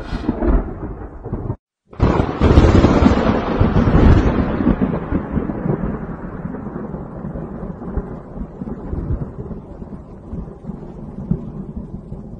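Thunder: after a short tail of rumble that cuts off, a sudden loud thunderclap about two seconds in, rumbling and slowly fading away over the next ten seconds.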